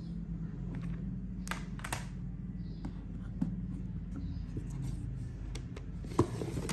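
Plastic CD jewel cases being handled: a few light clicks, then near the end a brief rustle and a cluster of clicks as a case slides into its slot in a cardboard box set. A steady low hum runs underneath.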